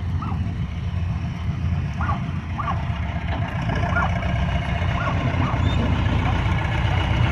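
John Deere 310G backhoe loader's four-cylinder diesel engine running as the machine drives slowly across the dirt: a steady low rumble that grows louder toward the end as the loader comes nearer.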